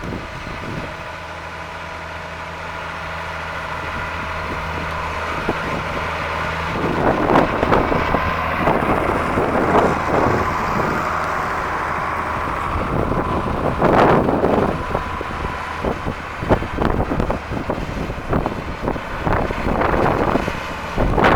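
Farm tractor engine running steadily and growing louder. From about seven seconds in, gusts of wind buffet the microphone.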